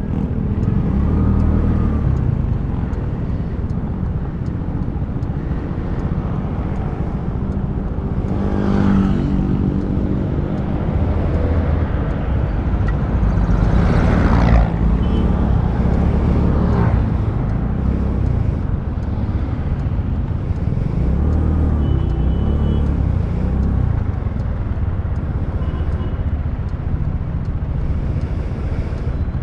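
Kymco Super 8 scooter's engine running in slow stop-and-go traffic, with surrounding road traffic, picked up by a lavalier mic on the rider's helmet chin strap. The noise swells louder twice, about nine and fourteen seconds in.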